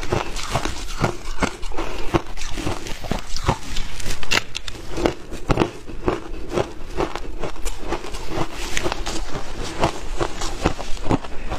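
Crunchy shaved ice being bitten and chewed close to the microphone: a dense, irregular run of sharp crunches, several a second.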